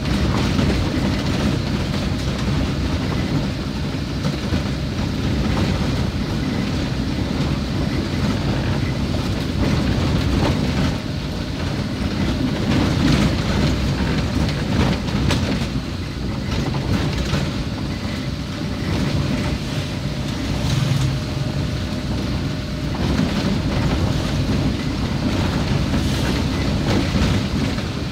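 Road noise from a vehicle driving over a rough, muddy, unsealed road: a steady low rumble with scattered rattles and knocks as it rides over the bumps.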